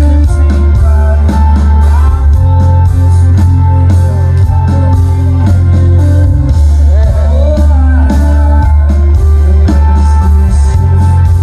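Live rock band playing: electric guitars over heavy, booming bass and steady drum hits, recorded loud from the audience.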